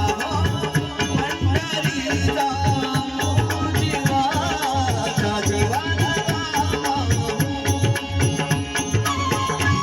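Marathi abhang devotional music with no sung words: quick, regular hand-drum strokes under a wavering melodic line. A steady held note comes in near the end.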